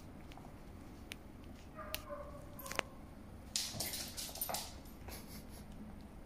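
A puppy gives a short, pitched whine about two seconds in, followed by a sharp click and a second or so of scuffling, clattering noise.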